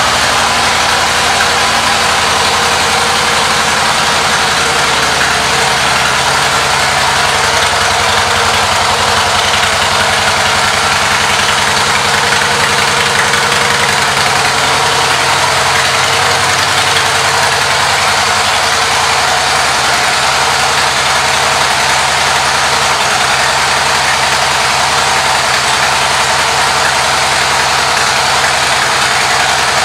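2014 Harley-Davidson Softail Deluxe's air-cooled V-twin running steadily at idle.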